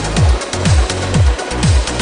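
Electronic dance music with a steady kick drum, about two beats a second, and a crisp hi-hat pattern over it.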